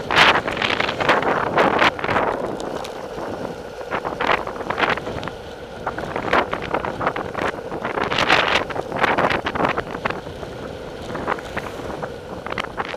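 Wind buffeting the camera's microphone at downhill cycling speed, rushing in irregular gusts that swell and fade.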